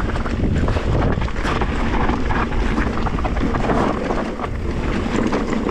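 Wind buffeting a GoPro's microphone while a mountain bike rolls down a dirt trail, with a steady rumble and many small rattles and knocks from the tyres and bike.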